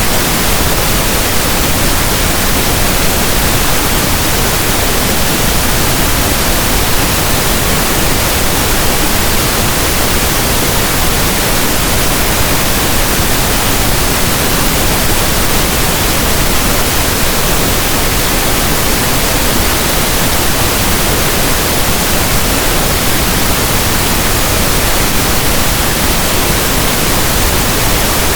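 Steady pink noise, a soft static hiss like a radio not tuned to a station, loud and unchanging throughout.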